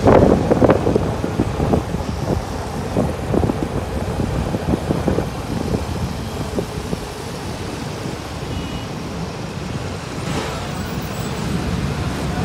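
Road traffic noise from motorcycles and cars running along a busy city road, heard from within the moving traffic. It is loudest and most gusty in the first second, then settles to a steady rumble.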